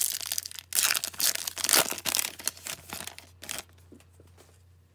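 A 2009-10 Upper Deck Victory hockey card pack being torn open, its wrapper crinkling and crackling for about three seconds. It stops about a second before the end.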